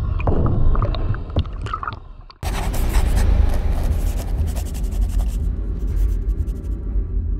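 Underwater sound of water movement with scattered sharp clicks, fading down, then a sudden switch about two and a half seconds in to a scratchy pencil-on-paper sound effect over a low, steady musical drone. The scratching thins out in the last couple of seconds as the drone carries on.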